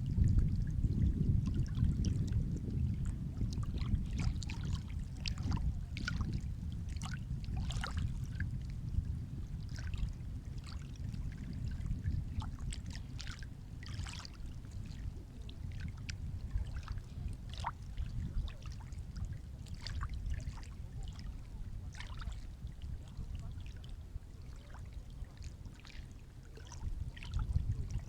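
Sea waves washing in: a low surging rumble, loudest at the start and slowly fading as the wash subsides, with scattered sharp crackles through it. The rumble swells again near the end as the next wave comes in.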